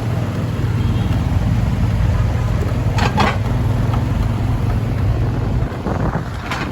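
Riding on a motorbike taxi: the small engine's steady low drone, with wind rushing over the microphone and street traffic around. A brief double blip comes about three seconds in.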